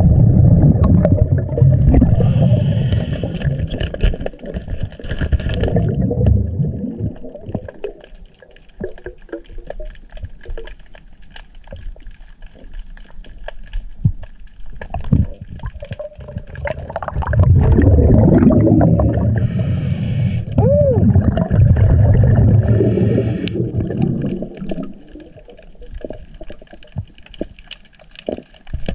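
Scuba diver breathing through a regulator underwater: exhaled bubbles rumble out in two long bursts, one at the start and one in the second half, with scattered small clicks and knocks of stones and gravel being handled on the riverbed in the quieter stretches between.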